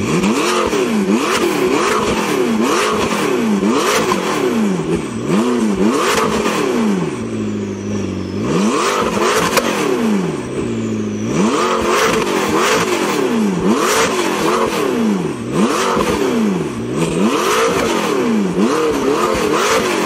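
McLaren 650S twin-turbo V8 breathing through an Fi Exhaust valved catback and catless downpipes, revved in quick throttle blips about once a second while standing still. It drops back to idle briefly about eight and eleven seconds in.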